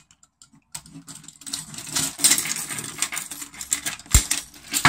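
Split-ring pliers and a treble hook being worked onto a lure's split ring: a dense run of small metallic clicks and scraping that starts about a second in, with one dull knock near the end.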